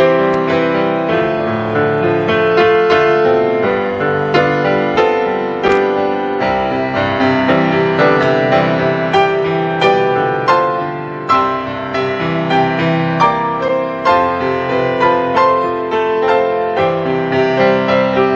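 Solo piano playing, with struck chords and melody notes that ring on.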